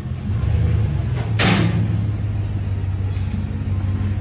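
A pickup truck's 6.0-litre V8 engine running with a steady low rumble, with a short burst of hiss about a second and a half in.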